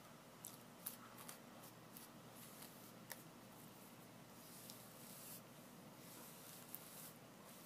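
Faint hairbrush strokes through long hair: soft swishes, with a few light clicks scattered through.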